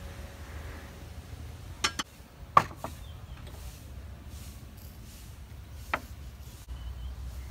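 A wooden spoon knocking against a bowl while stirring minced pork filling: a few sharp knocks, the loudest about two and a half seconds in and one more near six seconds.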